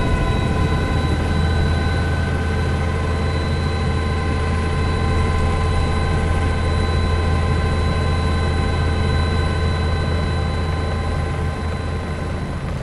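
Steady drone of an aircraft's turbine engine: a low hum with a steady high whine above it.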